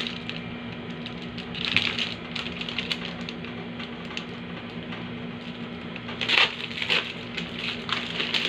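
Clear plastic packaging of an IV macro administration set crinkling and rustling as it is handled and opened, with louder bursts of crackling about two seconds in and again around six to eight seconds in.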